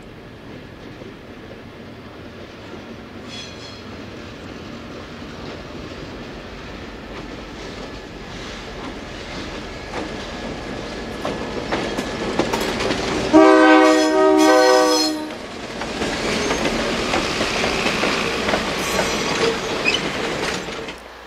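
Mount Hood Railroad diesel locomotive approaching with its running sound building steadily. About thirteen seconds in it sounds one horn blast of about two seconds as it draws level, and then its passenger cars roll past on the rails.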